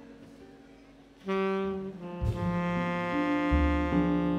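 Live jazz ensemble of saxophones and brass: after about a second of quiet, a single saxophone note enters. About two seconds in, the wind section joins in held chords over low bass notes.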